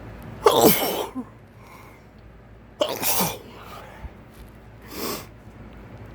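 A man sneezing twice, about half a second in and again near three seconds, each a loud, sudden burst that falls away in pitch; the sneezes are brought on by a cotton swab tickling the inside of his nose. A softer, breathy sound follows about five seconds in.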